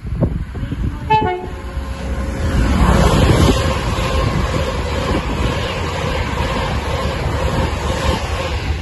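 Class 390 Pendolino electric train sounding a short two-tone horn, high note then low, about a second in. From about two and a half seconds it passes at speed with a loud, steady rush of wheels and air.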